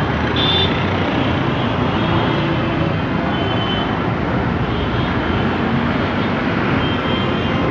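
Dense road traffic passing close by: engines of buses, trucks, auto-rickshaws and motorcycles running in a steady roar, with a short high horn beep about half a second in.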